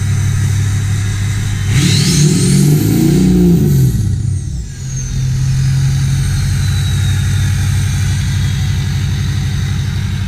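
2005 Ford F-250's 6.0 Powerstroke V8 turbo-diesel, with a 5-inch turbo-back exhaust, idling, then revved once about two seconds in and dropping back to idle. A high turbo whistle climbs with the rev and then slowly falls away over several seconds as the turbo spools down.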